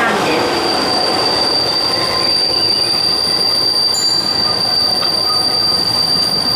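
Narrow-gauge Kurobe Gorge Railway trolley train's wheels squealing against the rails as it rounds a sharp curve: one steady high-pitched squeal that sets in just after the start, over the even running noise of the open car on the track.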